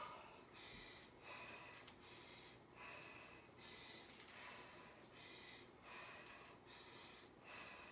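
Faint, rhythmic heavy breathing of a woman exercising hard: short breaths in and out, roughly one every three quarters of a second, during a Tabata work interval.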